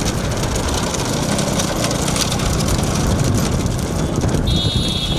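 Motorcycle engine running at speed with heavy wind noise, recorded from a moving bike. About four and a half seconds in, a high-pitched steady tone starts and continues to the end.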